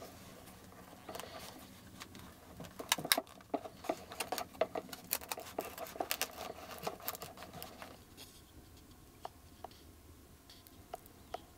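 A knife whittling a small piece of wood by hand: quick scraping and clicking strokes. They come thickly for the first several seconds, then grow sparser and quieter about two-thirds of the way in.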